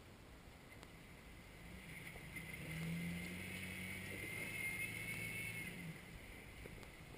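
Jeep Wrangler engine pulling under load as it crawls over boulders, swelling about a second and a half in and easing off near six seconds, with a high whine over the low engine note.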